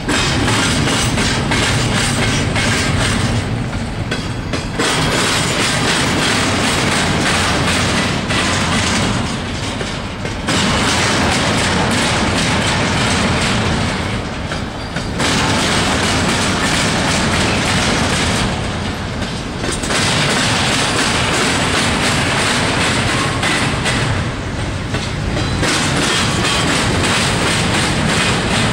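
Intermodal freight train rolling past, its steel wheels clattering over the rails, the noise dipping briefly about every five seconds.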